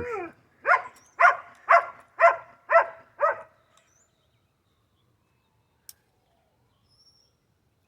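A dog barking six times in quick succession, about two barks a second, then stopping.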